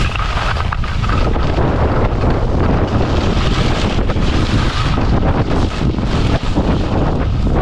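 Steady wind rushing over the camera's microphone while skiing downhill at speed, with skis scraping over groomed snow underneath.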